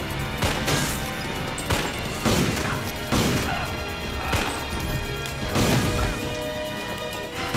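Film gunshot effects: several sharp shots about a second apart, over a steady action-movie music score.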